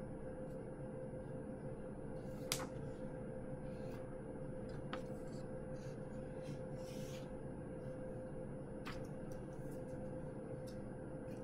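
Quiet room tone with a steady hum, broken by a few faint clicks and taps, the sharpest about two and a half seconds in.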